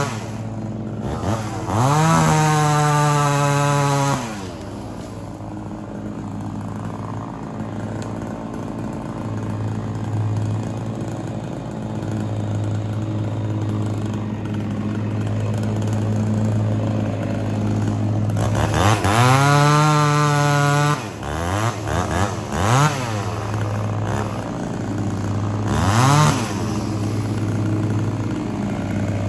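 A 58 cc chainsaw idling steadily, revved up hard and held briefly twice, with a few quick throttle blips in between before it settles back to idle.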